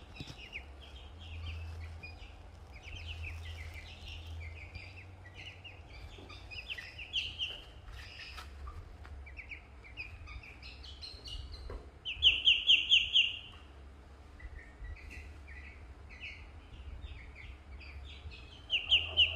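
Ducklings peeping: a steady run of short, high peeps, with a loud burst of rapid peeps about twelve seconds in and another near the end.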